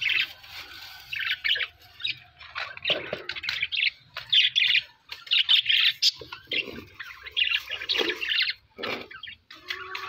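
Budgerigars chattering: quick, warbling chirps in short bursts with brief gaps between them.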